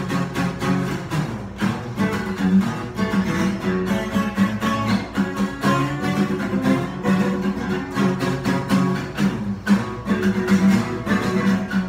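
Acoustic guitars playing a rhythm part together in short, choppy strums at a steady pace.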